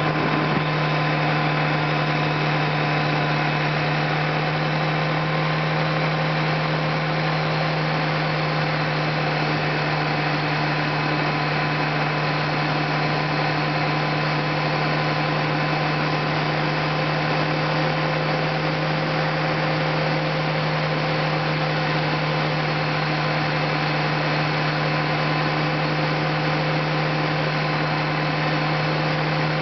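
Vehicle engine and tyre noise while cruising at a steady speed: a constant drone that holds one pitch, with a few fainter steady tones above it over an even road rush.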